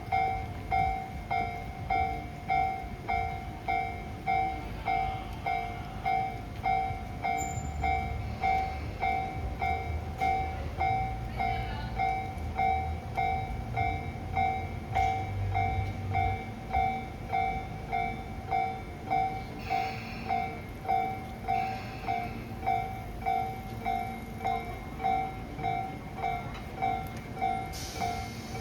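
Japanese level-crossing warning bell ringing in even, repeated strokes, a little faster than once a second. A train's low rumble rises under it for several seconds around the middle.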